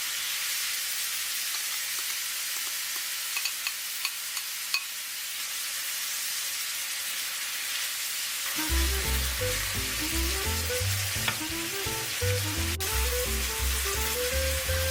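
Food sizzling steadily in a frying pan, with a few light clicks of a utensil stirring a few seconds in. Background music with a bass line starts a little past halfway.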